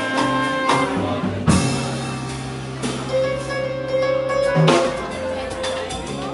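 Small jazz band playing live: saxophones holding long notes over double bass and drum kit, with sharp drum and cymbal accents every second or so.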